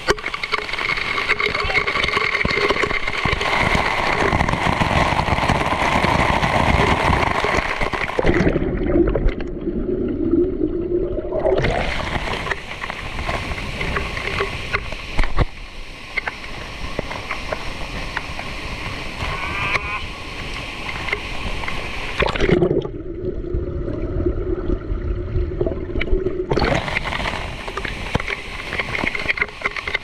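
Waterfall crashing down close by, water pouring and splashing onto the microphone in a steady hiss. The sound twice goes muffled for about three seconds.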